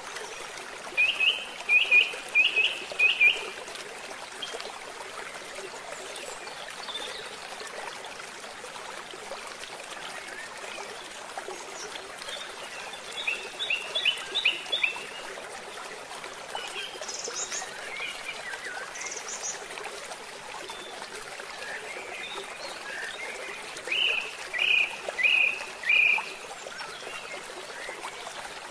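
Steady rush of a flowing stream, with a bird calling in quick runs of four or five sharp, high notes three times: about a second in, around the middle, and a few seconds before the end, plus scattered fainter chirps.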